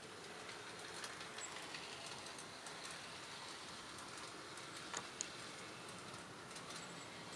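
HO-scale model train running on its track: a faint steady rolling hiss with scattered light clicks, and two sharper ticks about five seconds in.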